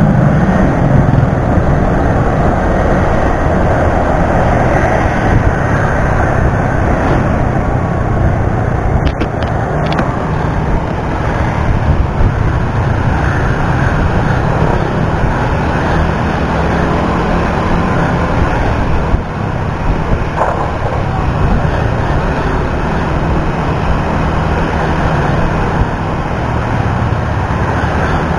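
Steady wind rush on an action camera's microphone during a motorcycle ride, with the motorcycle's engine and the surrounding road traffic mixed in underneath.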